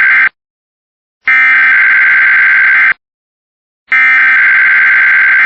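Emergency Alert System SAME header data bursts: a harsh, buzzy digital screech sent three times, each about a second and a half long with short gaps. These are the encoded alert header that starts an EAS test.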